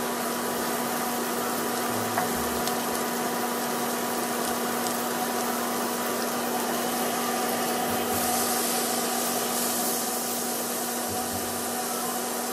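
Steaks searing in butter in a hot frying pan: a steady sizzle, with a steady low hum underneath. The sizzle gets brighter about eight seconds in.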